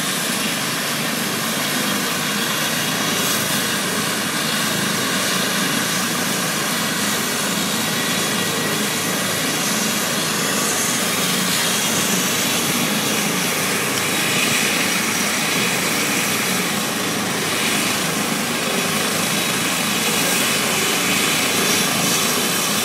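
Air ambulance helicopter running on the ground with its rotors turning: a steady turbine whine over the rotor noise, at an even level throughout.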